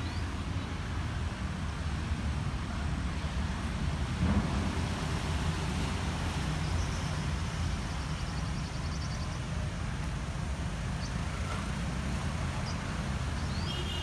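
Street traffic ambience: a steady low rumble of passing vehicles, with a few faint high chirps around the middle.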